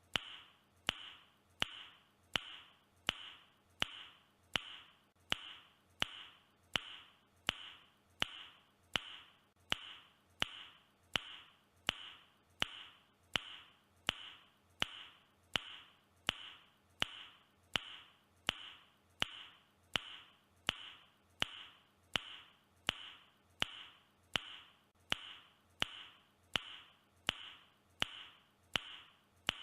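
A man's mouth click, repeated at a perfectly even pace a little more than once a second, each click with a short fading tail.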